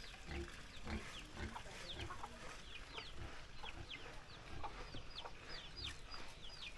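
Black-boned chickens peeping: many short, high chirps that fall in pitch, several a second, growing busier after the first second or so.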